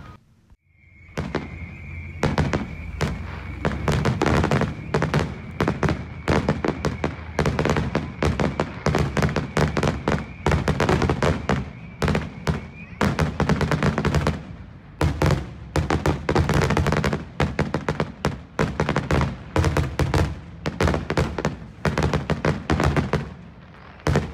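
Aerial fireworks display: a dense, continuous barrage of shell bursts and crackling bangs over a low rumble. A steady high tone runs under the bangs for about the first half.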